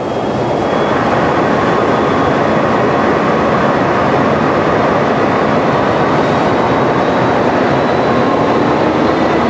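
A VIA Rail passenger train's cars rolling past close by as it pulls out of a station: a loud, steady rumble of wheels on rail. Faint tones rise slowly in pitch as it gathers speed.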